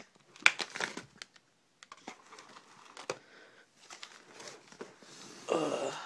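Packaging crinkling and rustling, with scattered clicks and knocks of kit parts being handled and set down. A louder rustle comes near the end.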